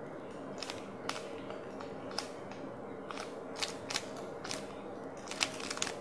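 A plastic 3x3 Rubik's cube being twisted by hand: scattered clicks of its layers turning, with a quick run of several near the end, over a faint steady hum.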